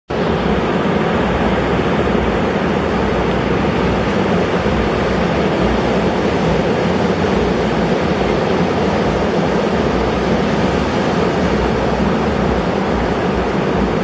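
Heavy ocean surf breaking and washing around pier pilings: a loud, steady rush of waves and foam with no single breaker standing out.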